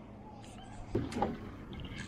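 Fairly quiet with a low steady hiss, and a few faint knocks about a second in from moving about on a small boat's hull.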